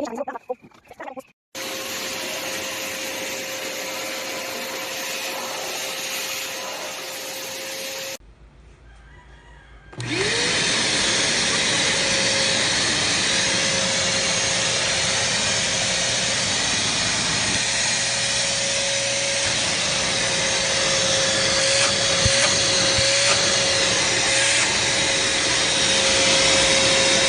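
BLACK+DECKER 10-litre wet & dry vacuum cleaner running with a steady motor whine. It stops about eight seconds in, and about two seconds later it is switched on again, its motor winding up to full speed and running steadily.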